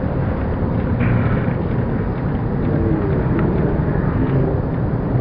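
Steady rumble and murmur of a busy exhibition hall, with faint distant voices now and then.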